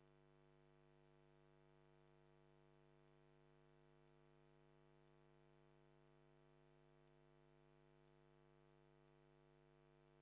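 Near silence: only a faint, steady, unchanging hum.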